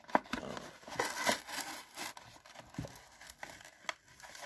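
Stiff clear plastic blister pack being pried and peeled away from its cardboard toy backing card, giving irregular crinkling and crackling of the plastic with scattered clicks.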